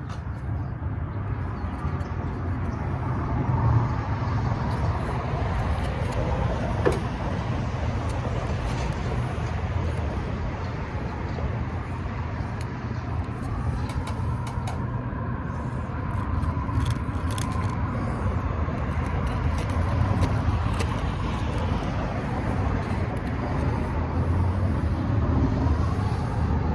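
Steady low rumble of a motor vehicle on the move, with a continuous noise haze and a few faint clicks.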